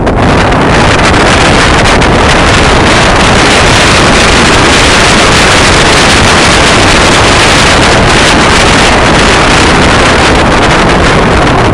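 Wind rushing over the microphone of a rider-mounted camera during a fast mountain-bike descent on snow: a loud, steady noise with no let-up.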